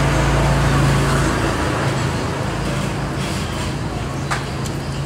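Road vehicle running along with traffic noise: a steady engine hum and road noise, a little louder in the first second or so, with a short click about four seconds in.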